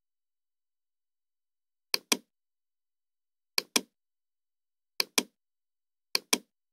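Four computer mouse clicks, each heard as a sharp double click (button pressed and released), spaced a second or two apart.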